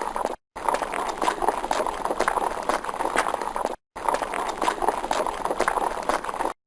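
Horse hooves clip-clopping at a fast pace, a dense run of hoofbeats, played as a repeated recording with a brief dead-silent gap every three seconds or so.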